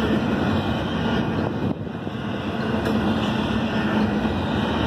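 Double-stack intermodal freight train rolling past: steady noise of steel wheels running on the rails and well cars rattling, with a brief drop in level just under two seconds in.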